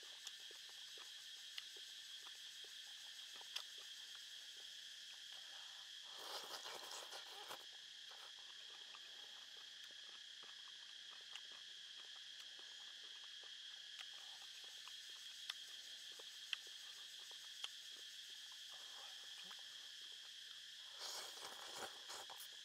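Steady high chirring of insects throughout. A person slurps noodles twice, about six seconds in and again near the end, with a few sharp clicks of chopsticks against the pan in between.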